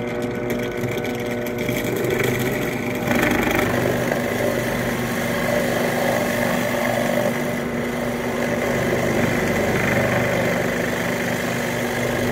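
Benchtop drill press running with a hole saw cutting down through a wooden stool seat: a steady motor hum under a rough cutting noise that gets louder about three seconds in.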